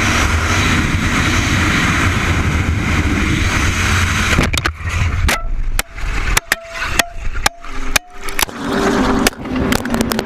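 Motorcycle at highway speed with a steady rush of wind noise on a helmet camera, over the engine's hum. About four and a half seconds in, this gives way to a string of sharp knocks and scrapes with short gaps as the bike crashes and the camera goes down onto the road.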